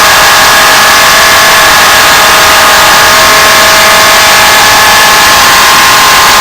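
Motor-driven power tool running steadily, likely a grinder: a loud, even hiss with a few steady tones over it.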